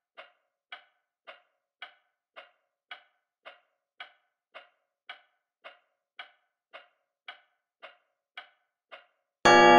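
A clock ticking evenly, a little under two ticks a second. Near the end a loud piano chord is struck and rings on.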